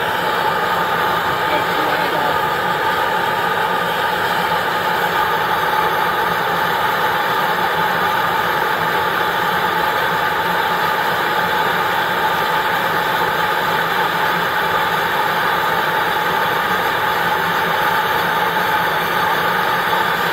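Coleman Exponent Denali backpacking stove burning at full flame: a steady, even rushing hiss of gas and flame from the burner.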